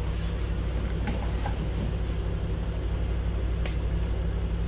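Steady low mechanical hum, with a few faint light clicks scattered through it.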